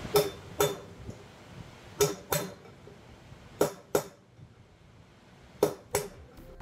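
Hammer tapping a punch held against the last wheel bearing in a Honda CBX rear wheel hub, driving the bearing out. There are four pairs of sharp metallic taps about two seconds apart, the two taps of each pair less than half a second apart.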